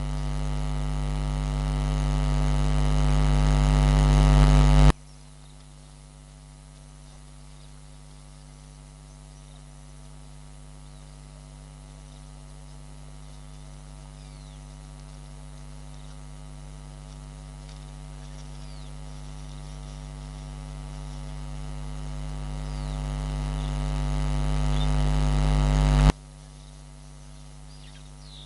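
Electrical mains hum, a buzz with many overtones, swelling steadily louder and dropping away abruptly about five seconds in, then building again slowly and dropping off sharply once more near the end. Faint high chirps sound above it.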